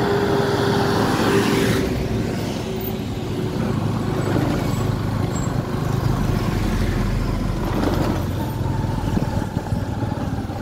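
Motorcycle riding through busy town traffic: the bike's engine running under steady road and wind noise, with trucks and cars passing close by.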